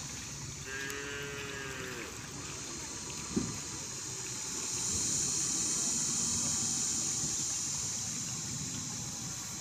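Cattle mooing once, a long falling call about a second in, over the steady rush of river water that grows louder about halfway through. A short knock sounds near the middle.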